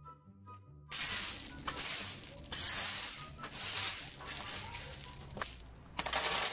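A few notes of soft background music, then, about a second in, loud crunching and scraping of gravel close by under a long-handled garden tool and shuffling feet. It comes in irregular bursts of a second or so with short pauses between them.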